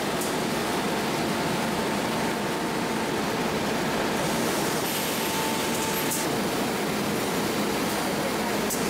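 Steady machinery noise from a rotary LPG cylinder filling carousel, with a faint steady whine that stops about six seconds in.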